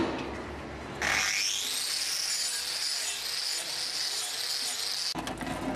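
Angle grinder with a hoof-trimming disc spinning up, a whine that rises steeply about a second in and then runs high and steady before cutting off about five seconds in. A sharp knock right at the start.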